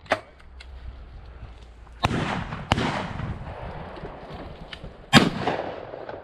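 Three shotgun shots: two about two-thirds of a second apart about two seconds in, and a louder third a little past five seconds, each followed by a rolling echo.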